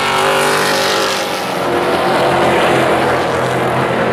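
A pack of Pro Truck race trucks' engines running hard through a turn, several engine notes overlapping and sliding up and down in pitch.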